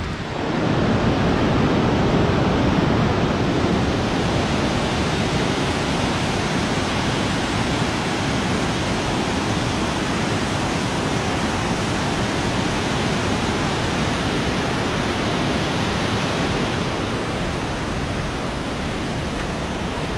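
Whitewater river rushing through rapids over boulders: a loud, steady rush of water that eases slightly near the end.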